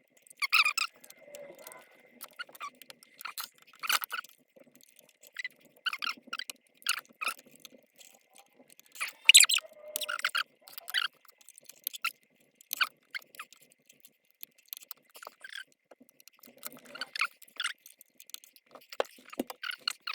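Irregular clicks, scrapes and squeaks of hands working inside a PC case, prying an old graphics card loose from its slot.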